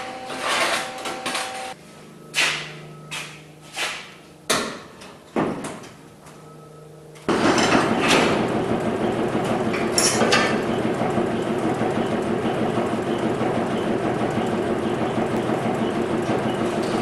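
Loose plasma-cut steel plates clanking and knocking against a steel welding table: half a dozen sharp metallic knocks. About seven seconds in, a cordless DeWalt drill starts suddenly and runs steadily at full speed, driving into the wall.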